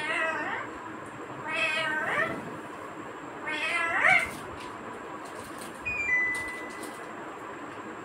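Three drawn-out meows, about two seconds apart, each sliding up and then down in pitch, followed by a faint steady high tone in the last two seconds.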